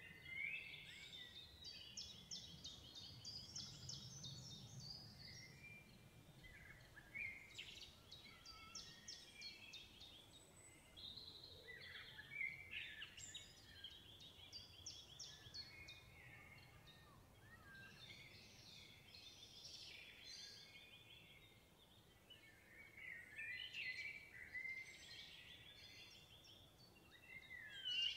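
Songbirds singing: short phrases of high, quickly trilled song come every few seconds, faint, over a low steady outdoor rumble.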